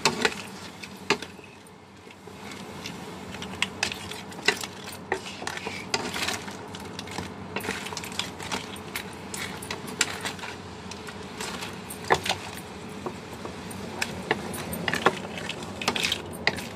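A wooden spatula stirring crabs in a wok, with an irregular clatter of crab shells and spatula knocking against the pan. It pauses briefly near the start, then runs on with frequent knocks over a faint steady hum.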